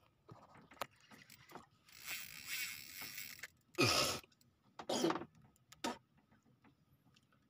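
Fishing reel being worked against a hooked fish: scattered clicks, a rasping stretch about two seconds in, then three short loud bursts, the loudest about four seconds in.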